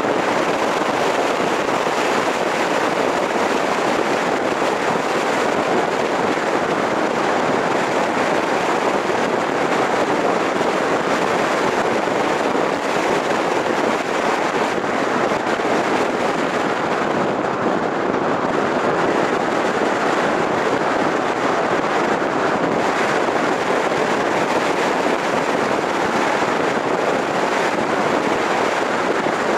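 Steady wind and road noise from a moving car, rushing over the microphone of a camera mounted outside the car. The hiss softens a little about halfway through.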